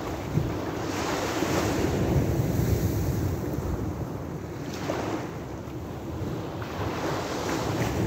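Small sea waves breaking and washing up a beach, the surf swelling and fading in surges every few seconds, with wind rumbling on the microphone.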